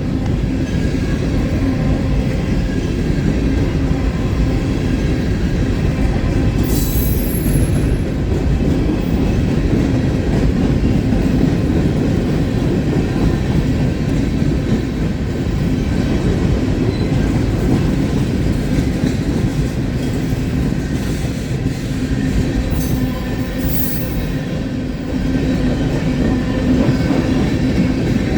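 Long freight train rolling past at close range: a loud, steady rumble of steel wheels on the rails. Two short high-pitched squeals cut through, about seven seconds in and again near 23 seconds.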